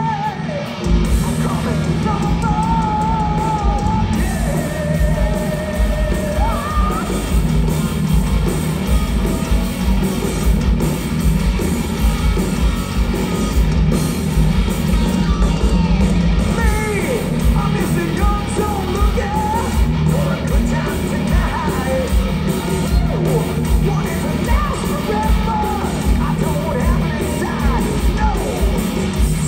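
Heavy metal band playing live: distorted electric guitars, bass and pounding drums, loud and continuous. Over the band, held, wavering melody notes stand out in the first several seconds.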